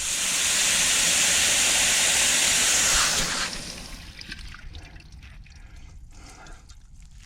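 Pressurised water hissing and spraying from a split in the water line as the supply is turned back on, a loud steady hiss that dies away after about three and a half seconds. The leak is a split 90-degree elbow on the cold supply line.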